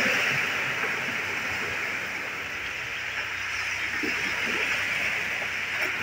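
Sea waves washing on the shore, a steady surf that eases off and swells again about four seconds in.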